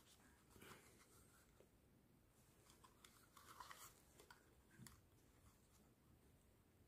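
Near silence, with a few faint rustles and soft knocks of plastic over-ear headphones and their cable being turned over in the hands.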